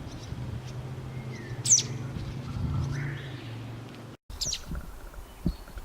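Welcome swallow giving its alarm call: two sharp, high notes, each sweeping quickly downward, about three seconds apart. This is the call the birds give when their young have left the nest and they dive at intruders.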